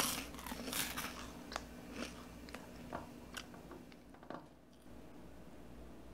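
Crisp toasted sliced-bread rusk being bitten and chewed close to the microphone. A loud crunching bite comes right at the start, then chewing crunches that thin out and stop about four seconds in.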